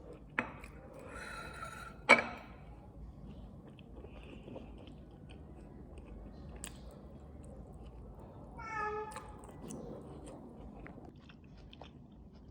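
A house cat meowing twice, a short high call about a second in and a lower call about nine seconds in, over soft chewing. Two sharp clicks come near the start, the second, about two seconds in, the loudest sound.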